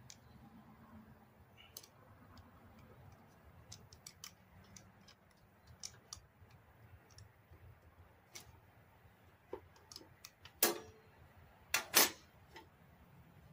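Hand tools working on the solenoid's metal bolts: scattered light clicks and ticks of a wrench and socket, with three louder metal knocks near the end.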